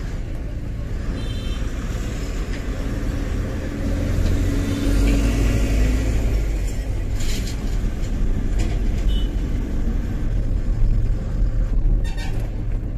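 Tata 1512 truck's diesel engine running under way, with a steady low rumble through the cab that grows louder about four seconds in.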